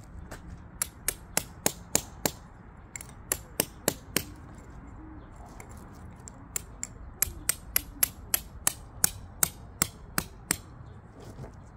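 A tent peg being hammered into the ground with quick, sharp strikes about three a second, in three runs separated by short pauses.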